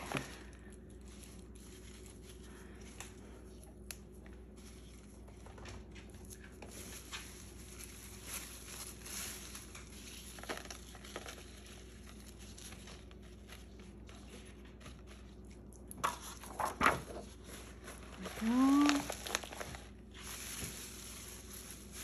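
Soft rustling and light taps of flower petals and leaves being handled and laid on a sheet of paper on a stone countertop. A few louder knocks come about 17 seconds in, followed by a short voice-like sound.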